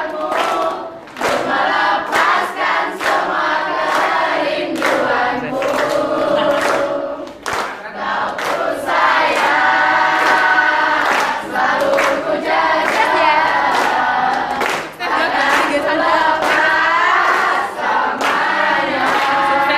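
A class of teenage students singing a song together in chorus, unaccompanied, with hand claps through it.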